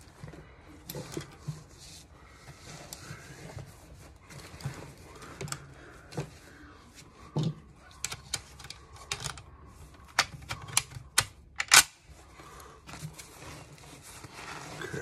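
M1 Garand being loaded: clicks and metallic clatter of handling as a five-round en bloc clip of cartridges goes into the rifle. There is a quick run of clicks, then a single loud metallic clack about twelve seconds in as the bolt closes.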